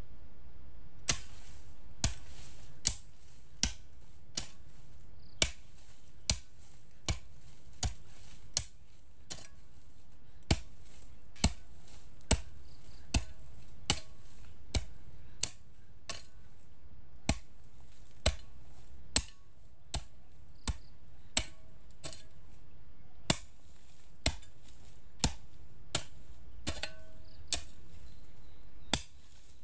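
A hoe blade chopping into soil again and again, about one sharp strike a second, digging planting holes for corn.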